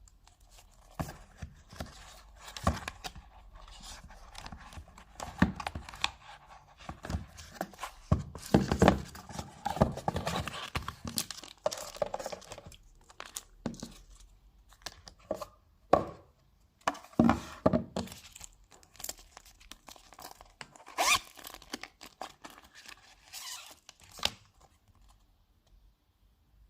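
Packaging being torn open and handled during an unboxing: irregular tearing and crinkling with scattered sharp clicks and knocks, stopping a couple of seconds before the end.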